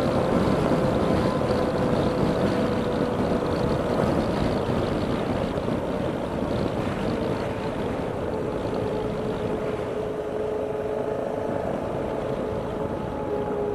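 Car driving noise heard inside the cabin: steady road and engine rumble with a humming tone that slowly drops in pitch and fades a little, as the car eases off its speed.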